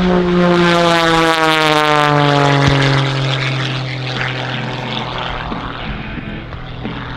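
Aerobatic biplane's piston engine and propeller passing close, loud, the pitch falling steadily as it goes by, then settling into a lower, steadier drone as it draws away.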